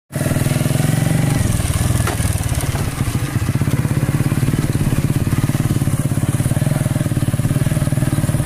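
Motorcycle engine running steadily with an even firing beat while the bike rides along.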